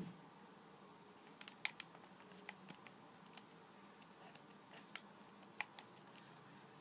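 Near-silent room tone with faint, irregular clicks and taps. A few come close together about one and a half to three seconds in, and sharper single ones come near five and six seconds.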